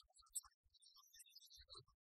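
Near silence, with only faint scattered blips.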